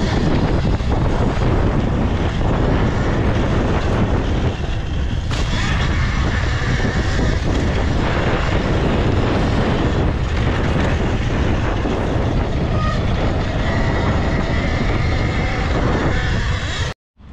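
Loud, steady wind rush over the microphone mixed with tyre and chassis rattle from a Talaria electric dirt bike riding fast down a dirt track. It cuts off suddenly near the end.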